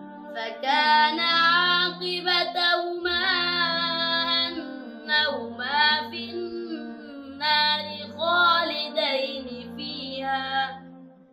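Background song: a high voice sings a melodic line in separate phrases over sustained low drone notes. It fades out near the end.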